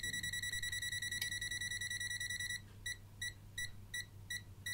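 MILESEEY MC616 multimeter's buzzer sounding its non-contact voltage (NCV) alarm: a steady high beep, which about two and a half seconds in breaks into short quick beeps, about three a second. It signals mains voltage detected in the nearby cable.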